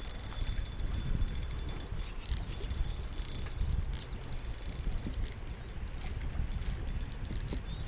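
Spinning reel's drag clicking in short spurts as a hooked fish pulls line off against a drag set very loose, over low wind rumble on the microphone.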